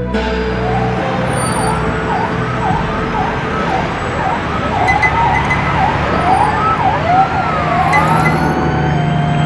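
Emergency vehicle siren in a fast yelp: quick falling-and-rising sweeps repeated over and over, over a steady low hum.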